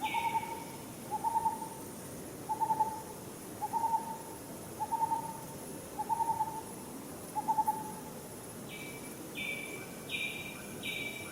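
A bird giving a short hooting note about once a second, repeated seven or eight times and stopping about eight seconds in. A second, higher-pitched call is heard at the very start and again as a quick run of about four notes near the end.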